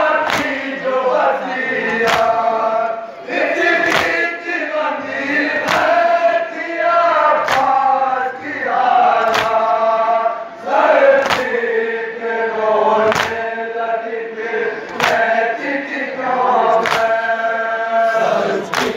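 A crowd of men chanting a mourning noha in unison, with sharp slaps about every two seconds as they beat their chests in matam.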